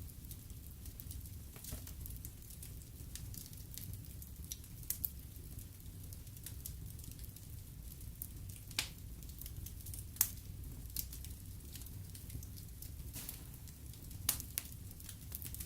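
Wood fire burning in a fireplace: a steady low rumble of the flames with irregular sharp crackles and pops, the loudest about 9, 10 and 14 seconds in.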